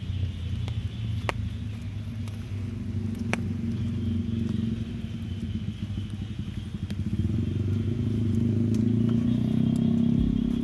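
An engine running steadily, with a low pulsing rumble that grows louder over the last few seconds, and a few sharp clicks.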